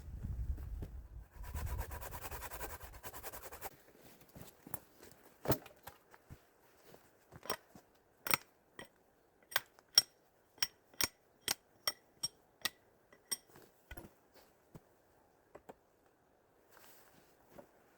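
A low rumble and rustling for the first few seconds, then a run of sharp separate clicks or taps, about one or two a second, from hands working with some tool or object.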